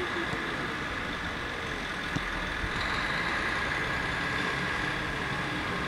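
Steady outdoor background hiss on a football pitch, with one short sharp knock about two seconds in.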